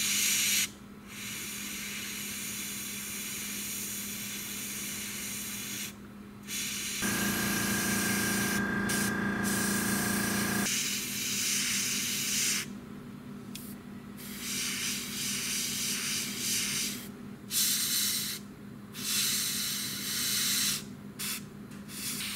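Airbrush spraying paint: a steady hiss of air that stops and starts repeatedly, more often in the second half, as the trigger is let go and pressed again. For about four seconds in the middle a buzzing motor hum joins in.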